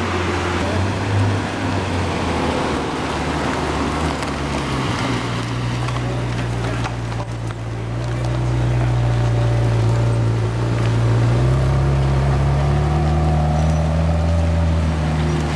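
Supercar engine idling with a deep, steady drone. It steps slightly higher in pitch about five seconds in and again about eleven seconds in, and grows louder from about eight seconds.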